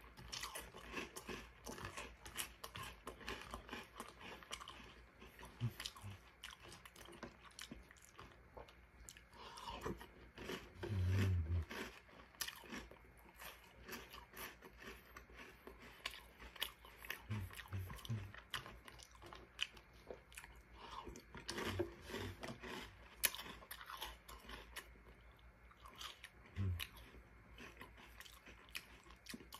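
Close-up chewing and crunching of Reese's Puffs cereal in milk, a dense run of crisp crunches all through. A few brief low hums from the eater break in, the longest about eleven seconds in.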